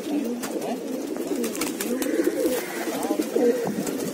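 Domestic pigeons cooing, several overlapping coos in a steady stream.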